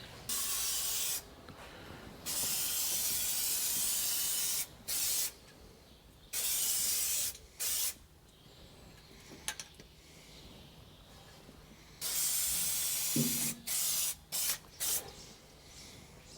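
Gray paint being sprayed onto bare welded sheet steel in a series of hissing bursts, about nine in all, the longest around two seconds, to coat the metal against rust.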